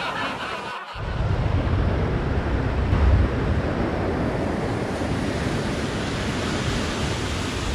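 Surf washing onto a beach, a steady rush of waves, with wind buffeting the microphone and adding a low rumble. There is a brief dropout just under a second in.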